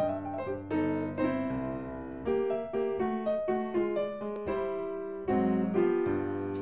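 Background music: a light piano tune of chords and melody notes, each struck and fading away.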